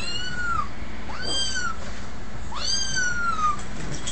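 Cat meowing three times, each call rising and then falling in pitch, the second one shortest.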